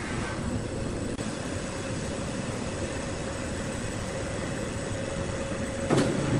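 Woodworking machinery running with a steady mechanical hum and a faint steady whine, then a sudden louder knock near the end.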